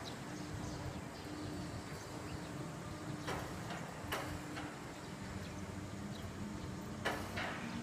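New Shuttle rubber-tyred guideway train moving slowly out of the depot: a steady low running hum, with a few sharp clacks, about three, as it rolls over the track.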